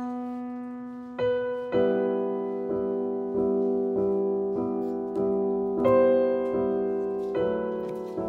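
Slow piano music: chords struck and left to ring, with a note repeated about every two thirds of a second and the chord changing a few times.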